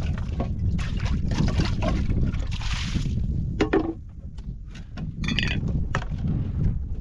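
Wind rumbling on the microphone over close handling of a metal kettle and a plastic water jerrycan. Light knocks and water sloshing in the can, a clunk about halfway, and a short metallic clink about five seconds in.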